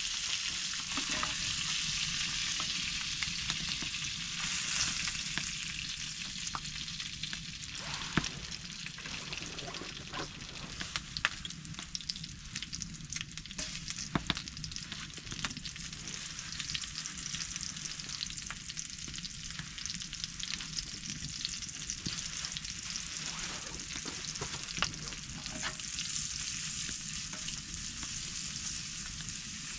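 Steady sizzling hiss with scattered sharp crackles from the hot tent's wood stove.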